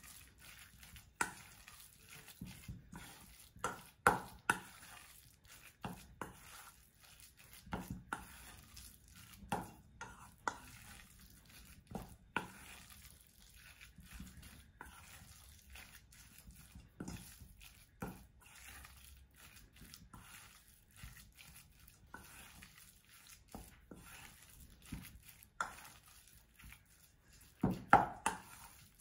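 A fork mixing minced pork and shrimp filling in a stainless steel bowl: irregular clinks and scrapes of the fork against the bowl, about one every second or two, the loudest near the end.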